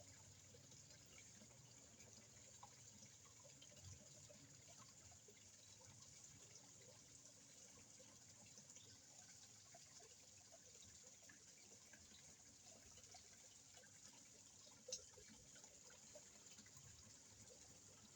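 Faint water of a koi pond: a low, steady trickle with small scattered ticks, and one sharper click about fifteen seconds in.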